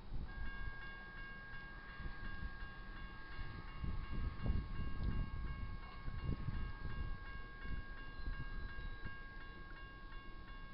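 Railroad grade-crossing bell starting up as the crossing signals activate, ringing with quick, evenly spaced strikes, with low rumbling underneath that is loudest around the middle.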